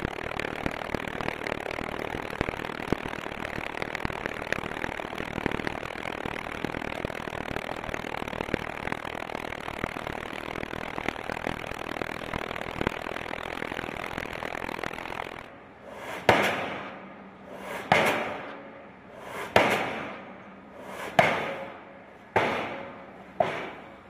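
Diesel pile hammer (Delmag D125-32) driving a large hollow steel pipe pile. For about fifteen seconds there is a steady, dense noise; then come six heavy, separate blows, about one and a half seconds apart, each ringing and dying away.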